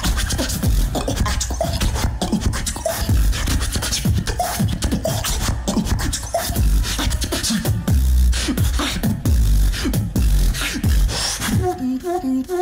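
Solo beatboxing into a microphone: fast mouth clicks and snares over deep bass hits that drop in pitch, switching to a few held pitched vocal notes near the end.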